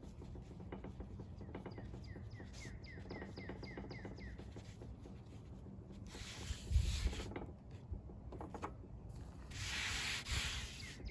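Cloth rubbing and brushing as a wood-ash-dusted denim fire roll is handled, in two hissy stretches about six and ten seconds in, with a low bump near the first. A bird chirps repeatedly in quick short falling notes during the first few seconds.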